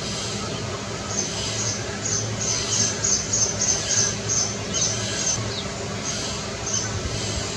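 A quick series of short, high-pitched chirps, about a dozen at roughly three a second, dying away a little past halfway with one more near the end, over a steady low background hum.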